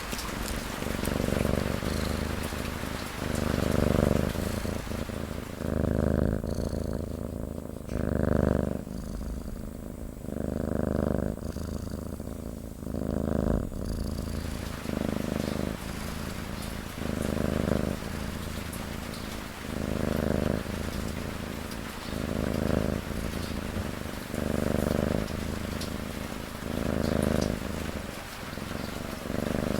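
A cat snoring in slow, even breaths, about one every two and a half seconds, over steady rain. The rain drops out for several seconds starting about six seconds in, leaving only the snores.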